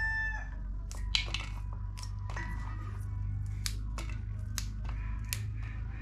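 Yardlong beans snapped into pieces by hand, a crisp snap roughly every half second at an irregular pace. A rooster crow trails off about half a second in, and a steady low hum runs underneath.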